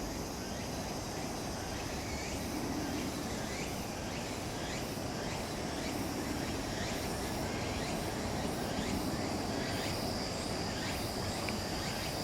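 Insects trilling steadily at a high pitch, with short chirps repeating over a low background rumble.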